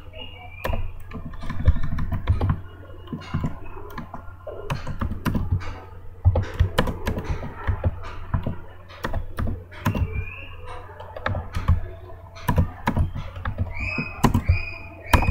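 Computer keyboard being typed on in irregular runs of keystrokes, over a low steady hum.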